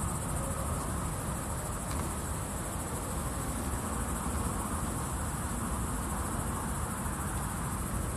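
Insects chirring in a steady high-pitched drone, with a low rumble underneath.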